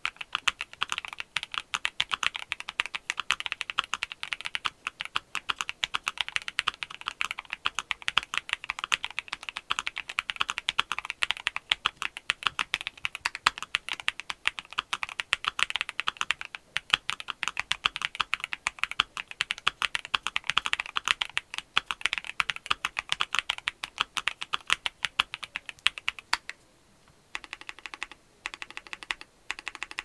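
Fast, continuous typing on a Monsgeek M2 mechanical keyboard with a polycarbonate plate, Domikey Deep Sea linear switches and Domikey Fading cherry-profile keycaps: a dense run of keystroke clacks. Near the end the typing breaks into short separate bursts with brief pauses between them.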